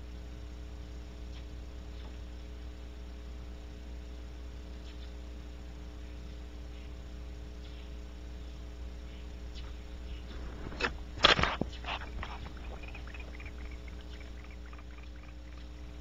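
Steady electrical mains hum from the surveillance camera's audio. About eleven seconds in, a brief cluster of sharp knocks and crackles lasts about a second and a half, followed by a few fainter ticks.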